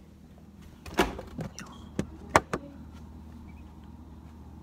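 About five sharp knocks and clatters in quick succession, from a phone being handled and set down on a shelf.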